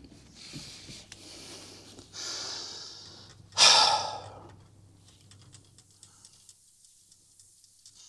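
A man breathing audibly: two soft breaths, then one loud sigh-like exhale about three and a half seconds in, after which it goes quiet apart from a few faint ticks.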